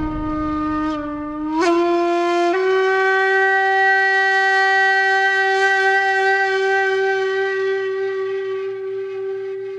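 A single long wind-instrument note in the background music. Its pitch steps up twice in the first few seconds, then holds steady and slowly fades.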